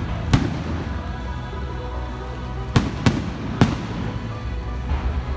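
Aerial firework shells bursting near the launch site: one sharp bang just after the start, then three in quick succession around the middle and a fainter one near the end, over steady music.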